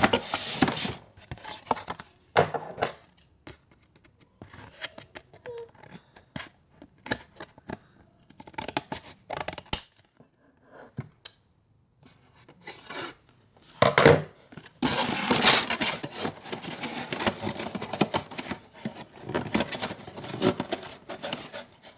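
Scissors cutting cardboard in irregular snips, with the cardboard scraping and rustling as it is handled. A sharp knock a little past halfway is the loudest moment, followed by a longer stretch of steady scratchy cutting and rubbing.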